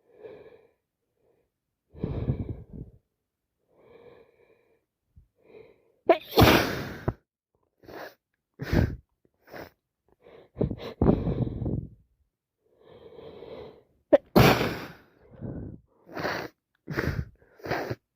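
A woman with a head cold sneezing wet sneezes over and over, several in a row, three of them loud. Breaths come between the sneezes.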